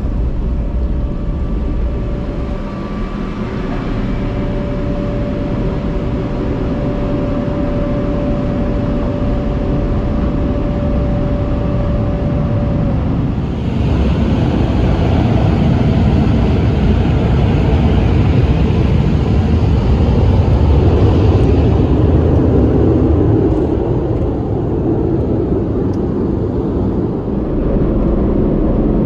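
Car wash tunnel dryer blowers running with a steady noise and a whine that stops about halfway through. A louder hiss then comes in and eases off again later.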